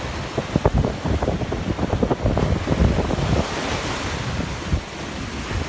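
Ocean surf breaking and washing up a sandy beach, with heavy wind buffeting a phone's microphone in gusts, strongest through the first half.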